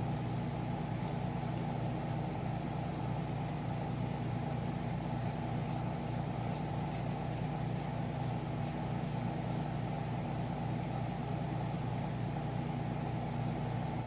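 Air conditioner running with a loud, steady hum and drone. A few faint light clicks come through it midway.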